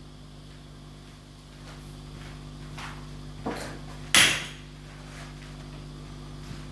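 Crate clips being levered off the wooden panels of a flat-pack shipping crate with a clip tool or flathead screwdriver: a few scraping clicks, with the loudest clack about four seconds in as a clip comes free.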